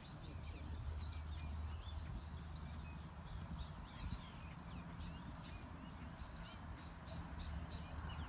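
Birds calling, many short chirps and quick gliding calls in quick succession, over a low steady rumble.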